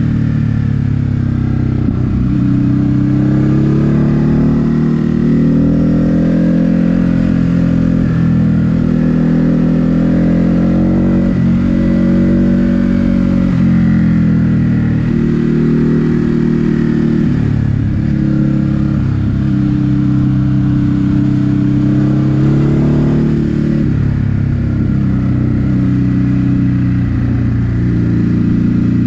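Ducati Hypermotard 950 SP's V-twin engine pulling the bike along, its pitch climbing and dropping back several times as the rider accelerates and eases off.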